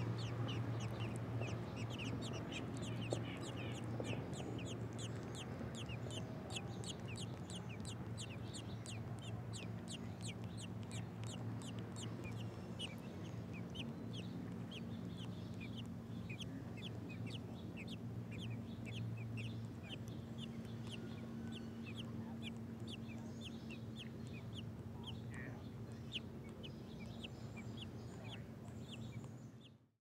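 American robin nestlings begging: a rapid, high-pitched series of short, falling peeps, about four a second at first and growing sparser about halfway through, over a steady low hum. The sound fades out near the end.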